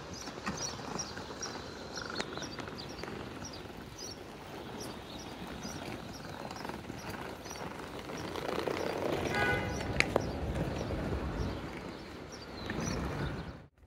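City park ambience: a bird repeats a short high chirp about twice a second over a steady hum of distant traffic. The traffic swells louder for a few seconds past the middle. The sound cuts off abruptly near the end.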